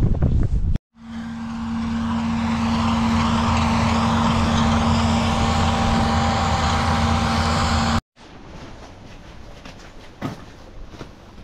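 A vehicle engine running at a steady pitch, starting about a second in and cutting off abruptly about eight seconds in. After that come quieter outdoor noise and a few light knocks.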